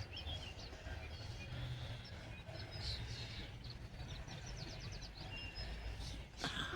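Small birds chirping here and there outdoors, with one quick trill about halfway through, over a low steady rumble.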